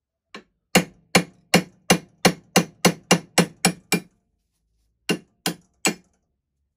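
Hammer blows driving a seized steel post out of a Metcalfe manual potato chipper. A light first tap is followed by eleven sharp metal strikes at about three a second, then a short pause and three more strikes.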